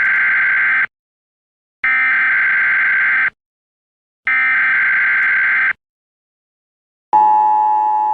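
Three long, identical electronic beeps, each about a second and a half, then a single lower ringing tone that fades away slowly near the end, opening a hip-hop music track.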